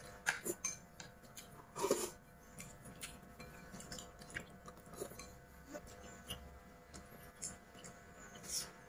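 Quiet eating sounds: chopsticks clicking against a porcelain bowl and plate, with chewing, as a scatter of small clicks and taps. The loudest clinks come just after the start and about two seconds in.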